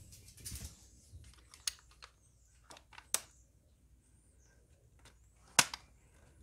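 Scattered sharp clicks and taps as air rifle parts are handled and fitted together by hand on the bench, the loudest click about five and a half seconds in.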